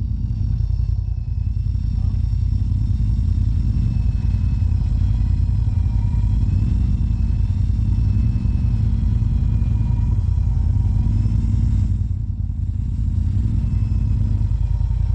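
Side-by-side UTV engine running steadily with a low rumble and a faint wavering whine above it, briefly easing off about twelve seconds in.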